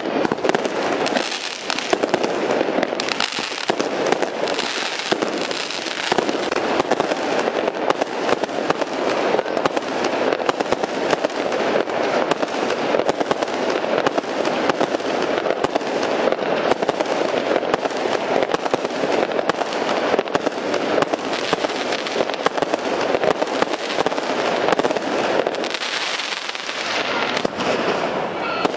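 Aerial fireworks going off in a continuous dense barrage: rapid overlapping bangs and crackle with no pause.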